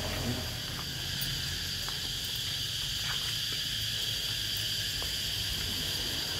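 Insects droning steadily, a constant high-pitched buzz with no breaks.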